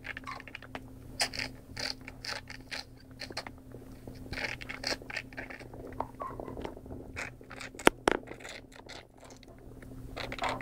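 Short, irregular wet sucking and scraping sounds as liquid is suctioned from a newborn puppy's airway with a tube aspirator, over a steady low hum. Two sharp clicks come about eight seconds in.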